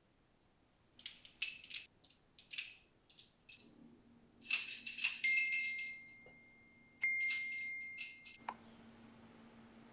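Metallic jingling in three shaken bursts, like a tambourine's jingles, with a thin steady high tone through the last two bursts that cuts off with a click, over a low steady hum.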